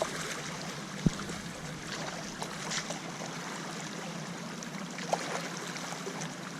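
Lake water lapping and trickling steadily at the shore, with one sharp knock about a second in and a few faint clicks later.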